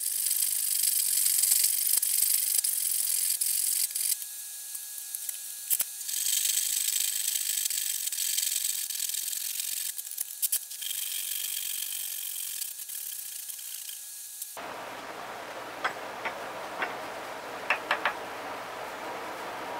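Hand work on a small piece of wood at a workbench: a high, scratchy hiss that shifts every few seconds. After a sudden cut it gives way to a quieter background with a few light, sharp wooden clicks near the end.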